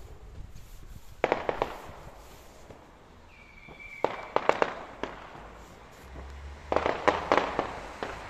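Aerial fireworks going off in three quick volleys of sharp crackling bangs: about a second in, at about four seconds, and again near seven seconds.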